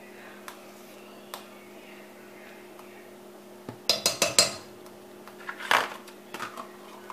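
Metal utensil knocking against a cooking pot in a quick cluster of clinks about four seconds in, and once more near the end, over a faint steady hum.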